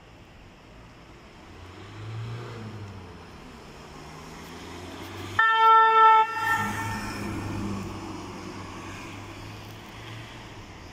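Fire-brigade rescue ambulance driving out and past: its engine noise swells about two seconds in, then a single loud horn blast of just under a second a little past halfway, after which the engine passes and fades away.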